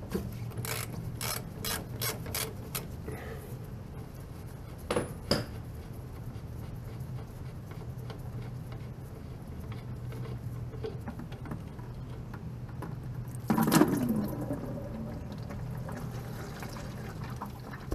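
A run of sharp clicks and a couple of knocks as a tool works the drain plug loose on a Kubota KX91-3 excavator's hydraulic tank. About thirteen seconds in, hydraulic oil splashes out and then pours steadily into a plastic bucket as the tank drains.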